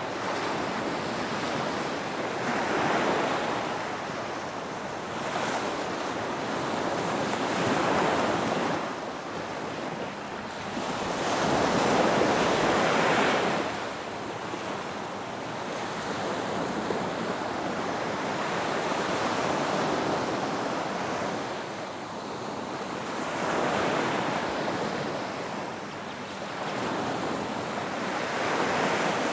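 Ocean surf breaking on a beach: a continuous wash that swells with each wave about every four to five seconds.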